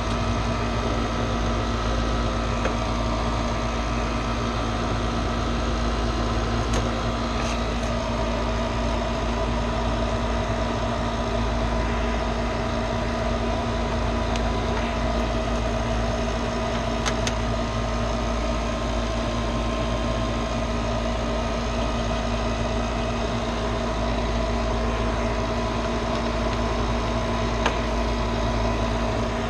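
Steady, unchanging mechanical hum of HVAC equipment running, with a few faint clicks.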